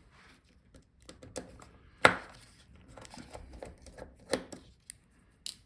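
Sharp plastic clicks and knocks of a laptop's power button assembly being worked free of its palmrest, with one loud click about two seconds in and a few lighter taps after.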